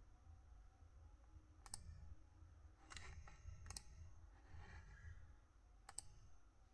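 A few faint, separate clicks of a computer being operated by hand, a second or two apart, over a low steady hum.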